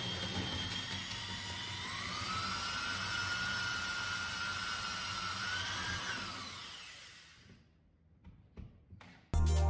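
Cordless drill driving a screw into the ceiling to fix a metal bracket: a steady motor whine that rises in pitch about two seconds in, holds, then winds down and fades out. A few faint clicks follow, and music starts near the end.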